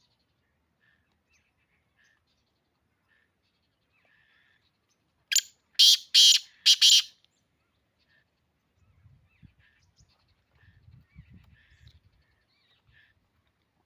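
Black francolin giving its harsh, grating call: one burst of about five loud, noisy notes lasting under two seconds, midway through. Faint short chirps of small birds sound around it.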